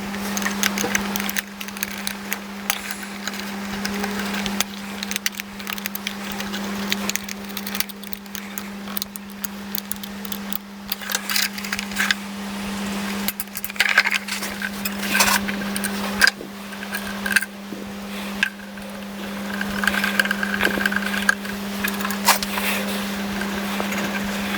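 Small tools and metal parts clicking and clinking at irregular intervals during bench work, over a steady low hum.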